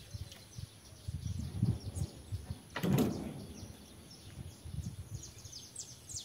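Small birds chirping in many quick, short falling notes, over an irregular low rumble of wind on the microphone. A short, loud swish about three seconds in.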